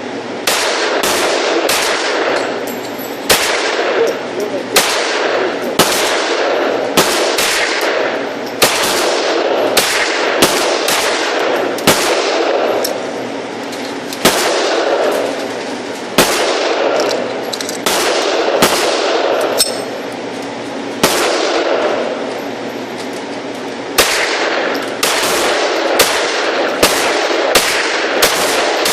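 Pistol shots fired at a range, one after another at an irregular pace of roughly one a second, each with a short echoing tail, over a steady low hum.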